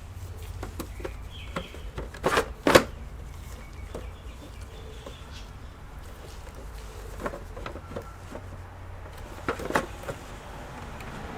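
Scattered clicks and knocks of computer parts being handled during work on a desktop PC. The loudest are two knocks close together about two seconds in, with a few more later, over a steady low hum.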